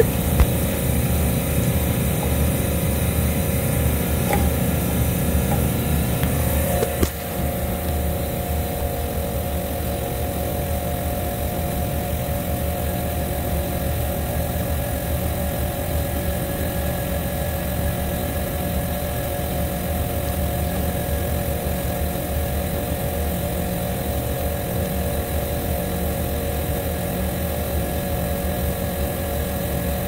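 Steady mechanical hum of a running machine, with a few steady tones, dropping slightly in level about seven seconds in.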